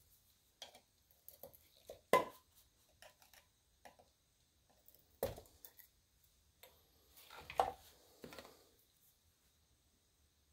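Sign-painting supplies being handled on a work surface: scattered clinks and knocks of small hard objects, the sharpest about two seconds in and another about five seconds in, with a short scraping shuffle near eight seconds.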